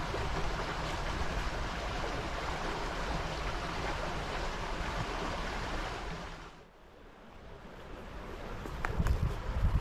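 Small river flowing, a steady rush of water that drops to a dull hush about seven seconds in, followed by a low rumble building near the end.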